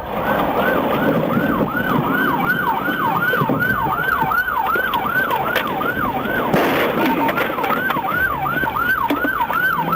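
Police car siren in fast yelp mode, sweeping up and down about three times a second over a steady vehicle rumble. The siren breaks off briefly about six and a half seconds in.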